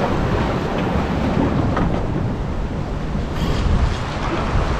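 Wind buffeting the microphone over small waves washing against the rocks of a granite jetty, a steady rushing noise.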